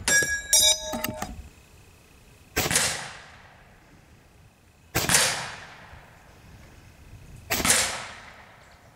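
AirForce Condor .22 PCP air rifle firing: three shots about two and a half seconds apart, each with a short echoing tail. Just before the first shot there is a quick run of metallic clicks with a ringing tone.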